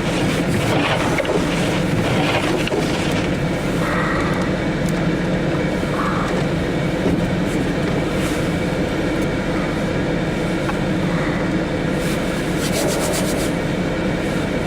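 Steady engine and road noise of a vehicle driving, with a short quick run of clicks about twelve seconds in.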